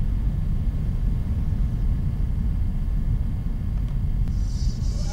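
Steady low rumbling noise drone, the eerie sound bed of a horror film's cursed videotape. Near the end, a brief high hiss rises over it.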